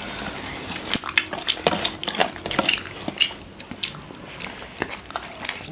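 Close-up eating sounds: chewing and biting, with many short, sharp mouth clicks and smacks, densest in the first half.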